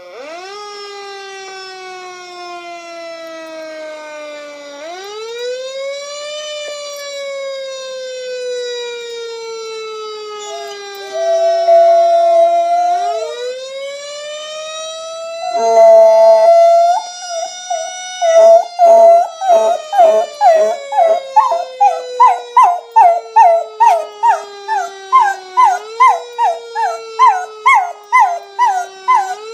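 Fire engine siren sound effect wailing, slowly rising and falling in pitch. A dog joins in with long howls about 11 and 16 seconds in, then howls in short repeated pulses, about two a second and louder than the siren, to the end.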